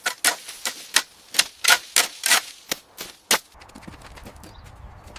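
A rapid, uneven series of about a dozen sharp clacks, roughly three or four a second, which stop about three and a half seconds in. A low, steady rumbling noise with faint ticks follows.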